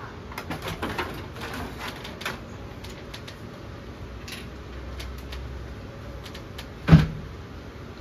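Plastic clicking and rattling as the front grill of a split air conditioner's indoor unit is unclipped and lifted off, then a single sharp knock about seven seconds in.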